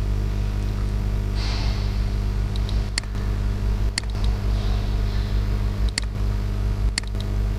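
Computer mouse clicking four times, sharp single clicks about a second or two apart, as quiz answers are selected, over a steady low electrical hum from the recording setup.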